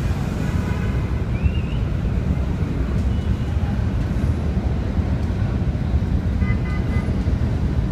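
Steady low rumble of city street noise, traffic mixed with wind buffeting the microphone, with faint voices in the distance.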